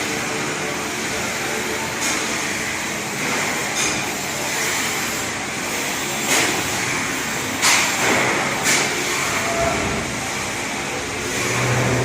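CNC turning lathe running, a steady mechanical noise broken by several short, sharp hissing clicks, with a brief low hum near the end.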